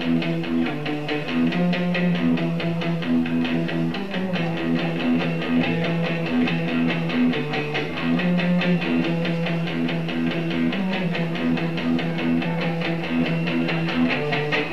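Live punk band music with no vocals: electric guitars strumming a repeating riff fast and steadily over bass and drums.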